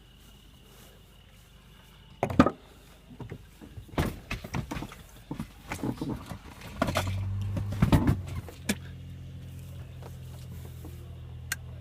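A series of knocks and thumps, the loudest about two seconds in, then a car engine starts about seven seconds in and runs at a steady idle.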